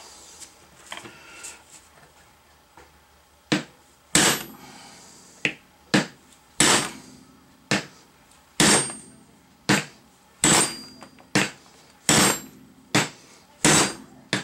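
Hammer blows on a steel punch driving a kingpin out of a Datsun pickup's steering knuckle, which stands on a steel table. After a few quiet seconds the blows come about one a second, each a sharp clank with a brief metallic ring.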